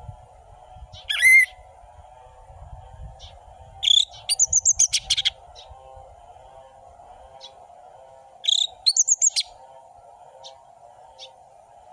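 Orange-headed thrush singing: loud, short phrases of quick high notes about a second in, around four seconds in and again near eight and a half seconds, with faint single chips between. A steady low drone runs underneath.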